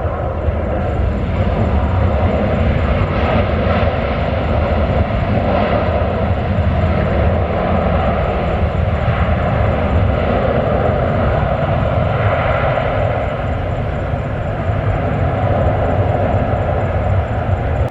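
Airliner's engines running at high power: a loud, steady rumble with a hiss above it.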